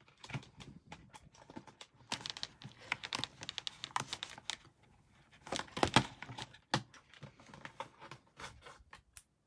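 Handling of doll packaging: quick irregular clicks and rustles of plastic and a cardboard tray as a doll's coat is freed from its box, with one louder knock about six seconds in.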